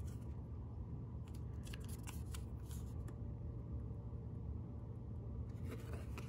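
A stiff printed card being handled: short rustles and scrapes as it is turned over in the hand, a cluster in the first half and again near the end as it is set down, over a steady low hum.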